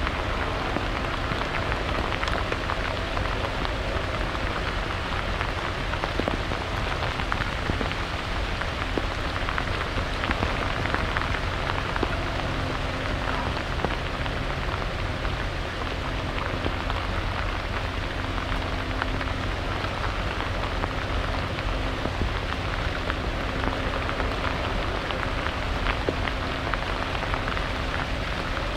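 Steady rain falling, with a dense patter of raindrops close by. A faint, low, steady hum runs underneath.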